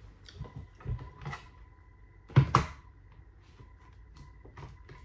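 Scattered knocks and clatters, with a sharp double knock about two and a half seconds in.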